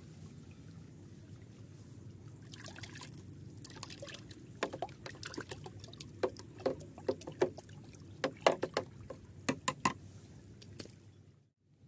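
Wooden stick stirring and sloshing muddy water in a plastic bucket: a run of quick splashes and knocks that starts a few seconds in and stops near the end.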